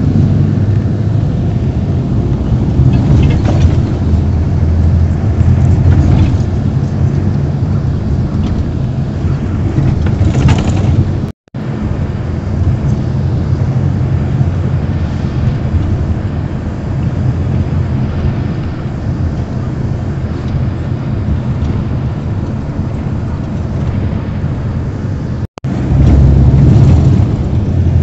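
Minibus engine and road noise heard from inside the moving bus: a steady low drone. The sound drops out briefly twice.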